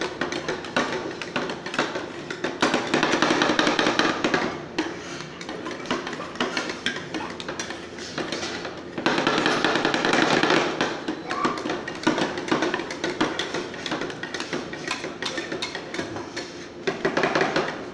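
Two metal spatulas chopping and scraping ice cream on a steel cold plate while making rolled ice cream: a fast, uneven run of metal taps, clacks and scrapes.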